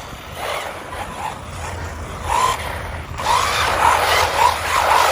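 WLtoys XK Match 1/10-scale 4WD electric RC car driving, its tyres squealing in short wavering chirps from about two seconds in, repeating more often from about three seconds.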